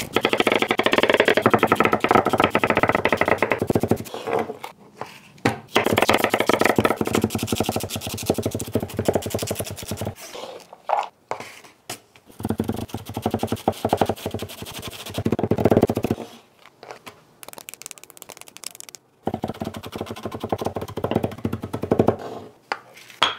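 Chef's knife chopping vegetables and herbs on a wooden cutting board, in four runs of quick cuts separated by short pauses.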